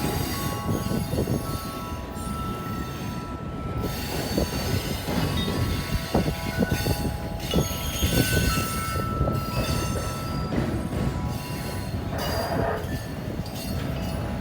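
Railroad cars rolling past with a steady low rumble, rapid wheel clatter and wheel squeal.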